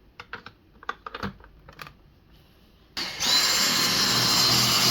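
A few short plastic clicks as the new filter is seated in a Dyson V6 cordless stick vacuum, then about three seconds in the vacuum switches on, spins up and runs steadily with a high-pitched whine.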